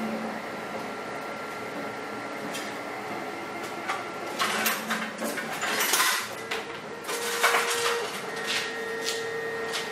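Rustling, scraping and light clattering as a floppy black piece is handled and pressed down in a stainless steel tray with loose pieces in it, in uneven clusters starting about four seconds in. Faint steady tones hum underneath.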